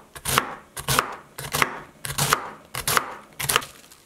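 Kitchen knife slicing a red cabbage into thin shreds on a wooden cutting board: about ten quick cuts, loosely in pairs, each ending in a knock on the board, stopping just before the end.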